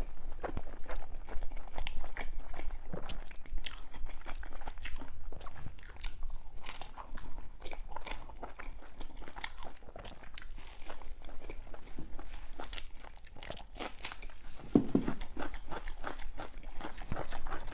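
A person eating close to the microphone: steady bites and chewing with many short mouth clicks, and a brief low sound about fifteen seconds in.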